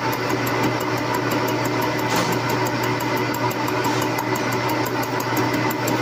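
Metal lathe running with a steady hum from its motor and gearing while a grooving tool cuts into the spinning workpiece, with a brief rasp about two seconds in.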